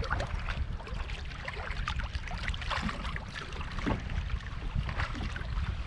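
Small waves lapping and splashing irregularly against a kayak's hull, over a steady low rumble of wind on the microphone.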